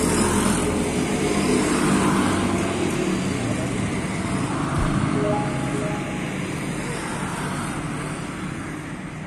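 A motor vehicle engine running nearby, a steady low sound that fades gradually over the last few seconds.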